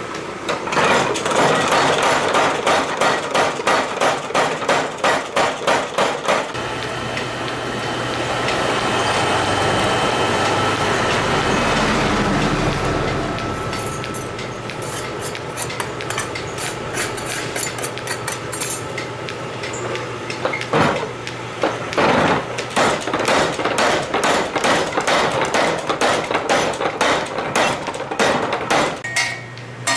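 Mechanical power hammer pounding a red-hot steel blade blank in rapid, regular blows, about three a second. The hammering stops for a stretch of steady forge noise while the steel reheats in the coal forge. It resumes with a couple of single blows and then fast regular pounding near the end.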